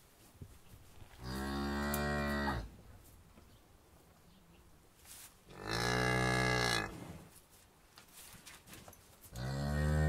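Cow mooing three times, each moo a long, low call lasting over a second, with the third beginning near the end.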